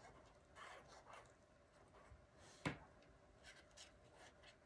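Faint scratching of a liquid glue bottle's tip drawn along the edges of a cardstock panel, with a single sharp tap about two and a half seconds in.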